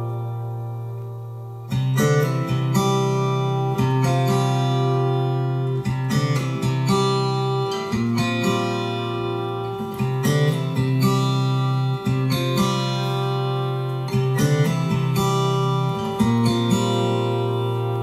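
Acoustic guitar music with strummed chords re-struck about every two seconds; a fading chord gives way to a fresh start of the music a couple of seconds in.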